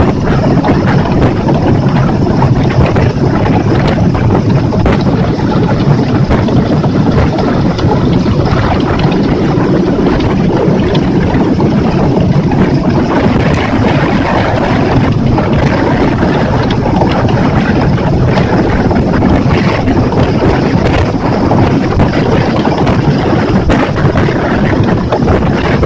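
Yamaha F60F 60-horsepower four-stroke outboard running steadily with the boat under way, with wind buffeting the microphone.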